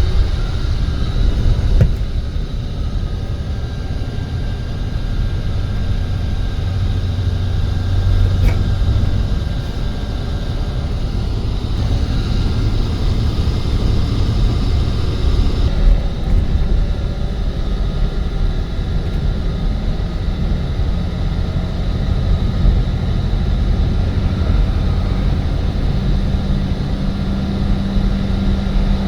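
A motor vehicle running, a steady low rumble with a faint engine hum that shifts slightly in pitch.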